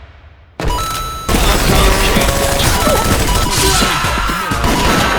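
Anime sound effects of a violent car crash: a sudden loud crash about half a second in, then a long dense rush of smashing and crashing noise.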